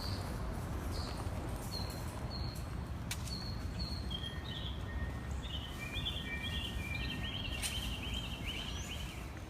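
Wind rumbling on the microphone, with small birds chirping: short high notes repeated at first, turning into a busier run of chirps from about four seconds in.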